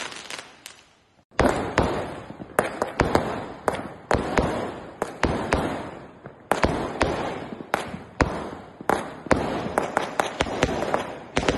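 Fireworks going off: a dense run of sharp bangs and crackles, many overlapping, with a short lull about a second in before the bangs start again.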